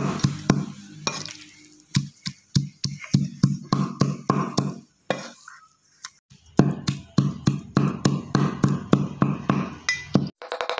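Cleaver chopping and mincing beef offal with fish paste (prahok) on a wooden chopping block: steady strokes, about three to four a second, with a short pause about halfway through.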